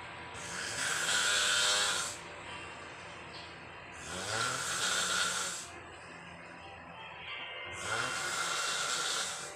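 A person snoring: three long, hissing breaths about four seconds apart, the second and third starting with a low buzz.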